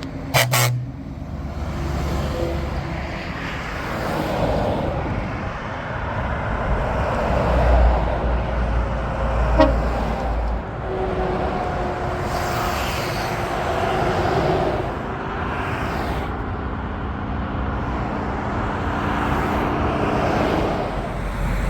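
A short truck air-horn blast about half a second in, then steady motorway traffic: trucks and cars passing at speed, rising and falling as each one goes by.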